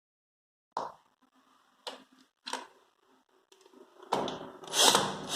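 A few sharp clicks, then about four seconds in a cordless drill-driver starts running, tightening a hinge screw into particle board.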